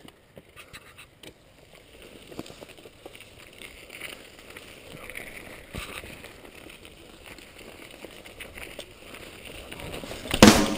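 Mountain bike rolling over a gravel trail: tyre noise with scattered clicks and knocks from the bike. Loud rock music starts suddenly near the end.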